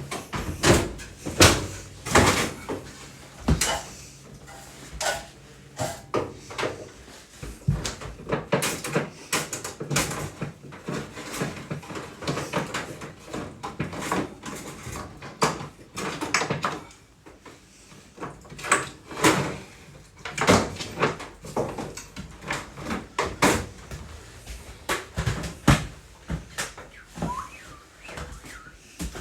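Irregular knocks, clunks and bumps of hands handling and fitting a microwave and its cabinet hardware, with a low steady hum under the first several seconds.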